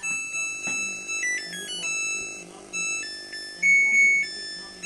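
Samsung WW80J5555FWEU washing machine playing its electronic chime melody, a short tune of pure beeping notes stepping up and down in pitch, signalling that the wash cycle has finished.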